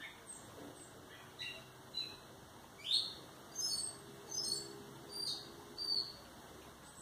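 Small bird chirping: a string of short, high chirps at irregular intervals, with one rising chirp about three seconds in the loudest.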